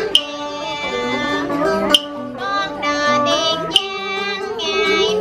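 A woman singing a Vietnamese folk song in long held notes with wavering pitch, accompanied by a plucked acoustic guitar and a moon lute (đàn nguyệt). A sharp click marks the beat about every two seconds.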